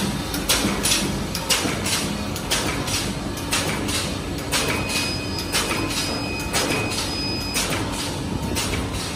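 Side-seal patch-handle bag making machine running, with an even clacking stroke about twice a second over a steady mechanical hiss. A thin steady tone sounds for a few seconds in the middle.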